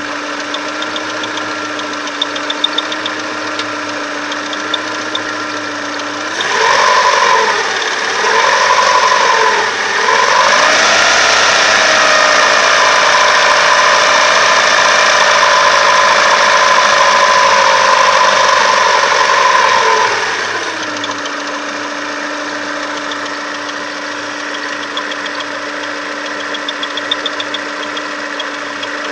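Chevrolet Lacetti engine running at warm-up idle with a steady whistle that the owner puts down to the timing belt tensioner roller. About six seconds in it is revved twice briefly, then held at higher revs for about ten seconds with the whistle rising in pitch, before it settles back to idle.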